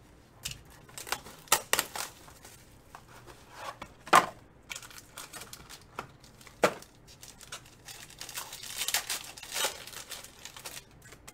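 Foil wrapper of a trading-card pack being handled and torn open by hand, with a few sharp crackles and then a dense stretch of crinkling near the end as the wrapper is pulled apart.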